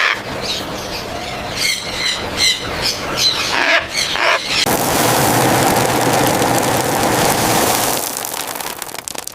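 Young blue-and-gold macaws squawking and screeching. A string of short, harsh calls comes first, then from about five seconds in a dense, continuous screeching that lasts about three seconds before it thins out.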